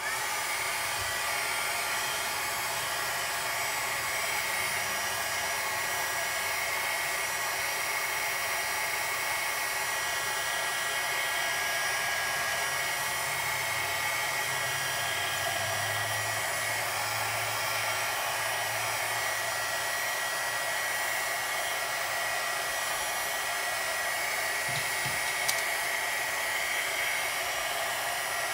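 Small handheld craft heat gun switched on and running steadily: a constant blowing rush with a high whine. It starts suddenly at the outset and does not change.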